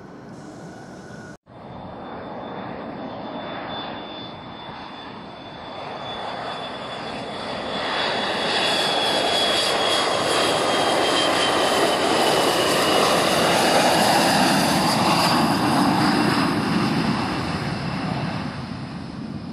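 Jet airliner's engines passing close by: the noise builds to a peak in the second half and then eases off, with a thin high turbine whine gliding slowly down in pitch as the aircraft goes by.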